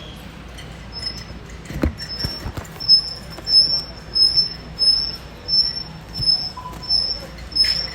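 A short high-pitched squeak repeating evenly, about one and a half times a second, starting about a second in.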